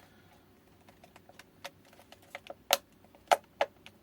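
A run of light plastic clicks and taps from hand handling of the e-bike battery pack's case, growing busier about halfway in, with three sharper knocks near the end.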